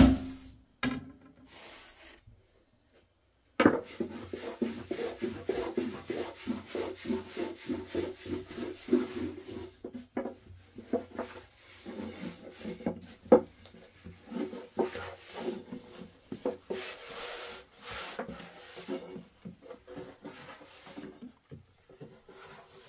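Rough rubbing and scraping strokes in a quick, irregular run. It begins suddenly after a short gap of dead silence about three and a half seconds in.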